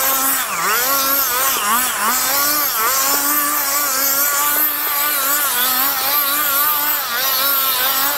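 1/7-scale Kyosho Red Bull RB7 RC car making its F1-style engine sound. A steady high engine note dips in pitch and climbs back several times, like a racing engine blipped on and off the throttle.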